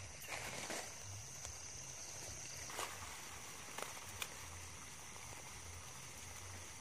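Faint outdoor background: a steady hiss with a thin, steady high-pitched tone, and about three soft clicks near the middle.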